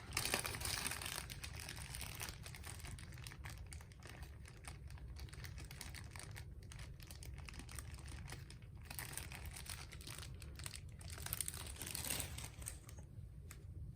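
Small clicks and scrapes from hands handling a Zippo lighter insert while a new flint is loaded into it.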